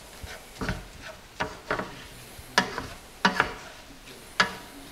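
A spoon stirring and scraping rice and tomatoes around a hot skillet, a scrape or knock about every second over a low sizzle as the rice toasts in the pan juices.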